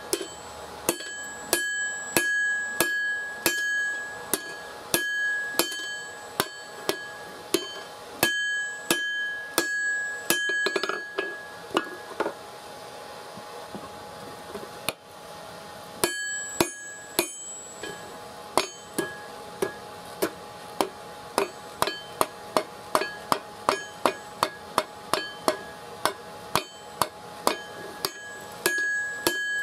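Hand hammer blows on red-hot steel on an anvil, each strike followed by a bright metallic ring from the anvil. The blows come unevenly at first and stop for a few seconds around the middle. They then pick up to a steady, quick rhythm of about two a second.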